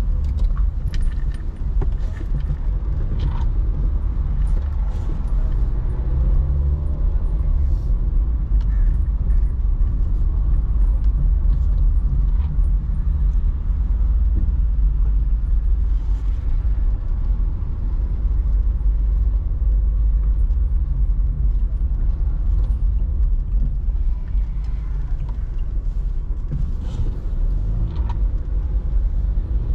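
Car driving on a city road: a steady low rumble of engine and tyres, with scattered small clicks and rattles.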